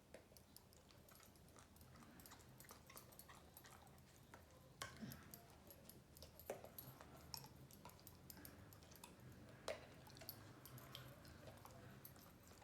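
A dog chewing on a toy: faint, irregular clicks and small crunches of teeth working on it.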